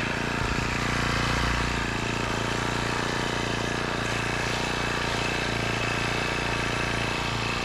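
Rhino gas-powered post driver running steadily at full tilt, driving a 2-inch galvanized steel pipe piling into the ground.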